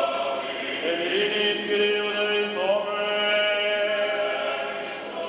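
Greek Orthodox liturgical chant, voices singing long held notes that glide slowly from one pitch to the next.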